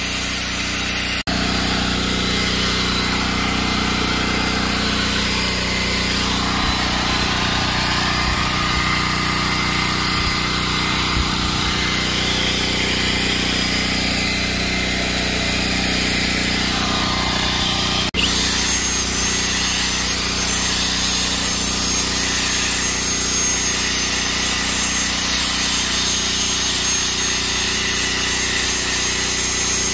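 A steady motor hum runs throughout, with a cordless drill spinning a round scrub brush to agitate cleaning solution into upholstery fabric.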